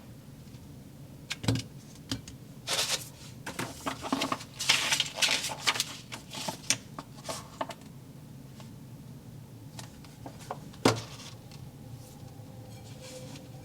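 Small hard plastic toy pieces and containers being handled, clicking and rattling. A dense run of clicks lasts a few seconds, and a single sharp tap comes near the end.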